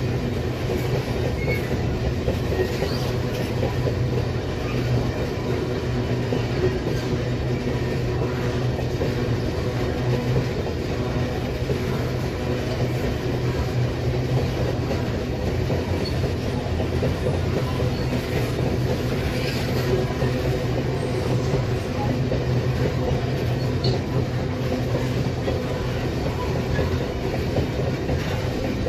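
Empty GDU iron-ore wagons of a long freight train rolling past: the steel wheels run on the rails with a steady rolling noise and low hum that holds without a break.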